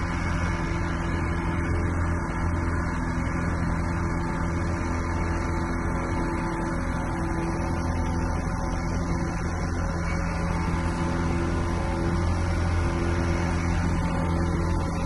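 Tour boat's engine running steadily, a low droning hum that keeps an even pitch.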